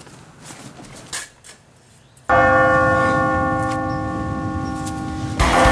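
A single bell struck once, about two seconds in, ringing with several steady tones and fading slowly for about three seconds. Faint clicks of the door handle come before it, and loud music starts near the end.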